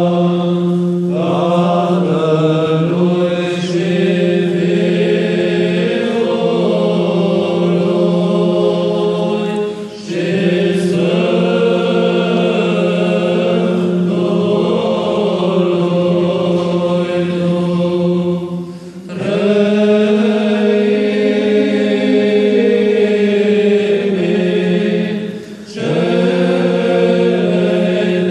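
Byzantine-style Orthodox chant sung by a monks' choir: the liturgy's great responses. A loud, steady ison drone is held close by under the moving melody, and the singing breaks briefly for breath three times.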